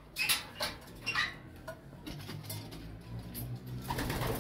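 Homing pigeons shifting on the wire-mesh floor of their loft: several light metallic clicks and taps, most of them in the first second and a half, over a faint low hum.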